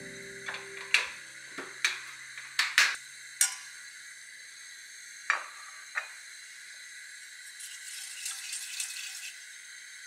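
Food sizzling steadily in a frying pan, with a cooking utensil knocking against the pan about nine times in the first six seconds.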